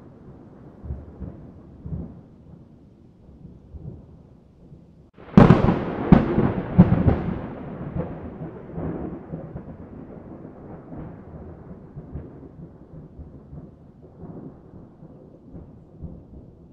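Thunder: a low rumble, then a sudden loud crack about five seconds in that rolls on and fades away over the following seconds.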